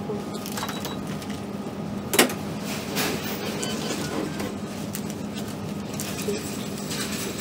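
Checkout-counter room tone: a steady electrical hum, with a sharp knock about two seconds in and a lighter click a second later.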